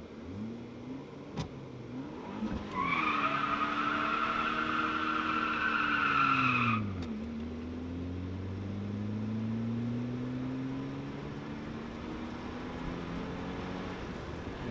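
Saab 900 2.0 turbo four-cylinder revving up while its front tyres spin and squeal in a burnout for about four seconds, the squeal cutting off sharply. The engine revs then drop and it pulls away with a slowly rising pitch.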